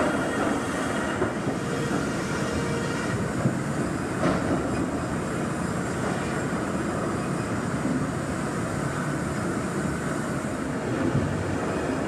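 Sawmill machinery running with a steady mechanical rattle and rumble.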